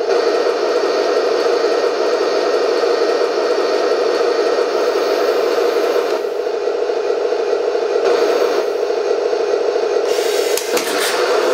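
Radio-controlled model tank standing still and making a steady rasping mechanical whir while its turret traverses and its gun elevates. The upper hiss thins out twice, about halfway through and again near the end.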